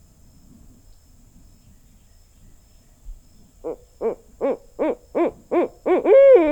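Barred owl calling: a run of about eight hoots, nearly three a second and growing louder, starting about halfway through and ending in a long, drawn-out note that falls in pitch.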